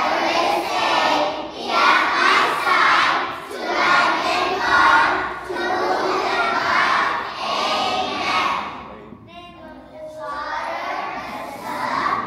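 A group of young children singing together in short phrases, with a brief drop about nine seconds in.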